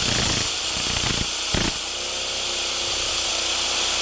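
Small model stationary steam engine running on compressed air fed from a blow-gun nozzle: a steady hiss of air with a hum from the running engine under it, and a couple of knocks a little over a second in.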